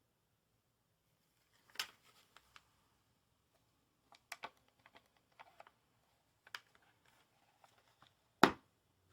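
Hands handling a wrapped playing card deck: scattered small clicks and rustles, with one sharper knock about eight seconds in.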